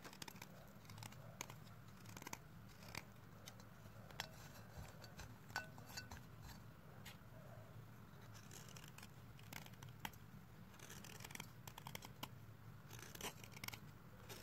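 White chalk sticks scraped and broken against a serrated metal blade: faint, irregular crunches and scraping clicks with crumbs falling, over a steady low hum.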